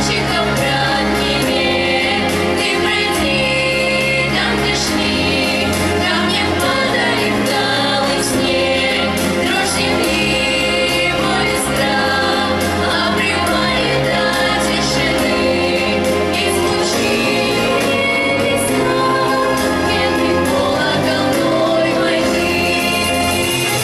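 Children's vocal group singing together over instrumental accompaniment with a steady beat and a moving bass line.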